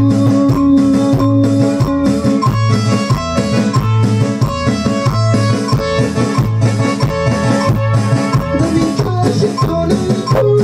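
Loud dance music with guitar, bass and a steady drum beat.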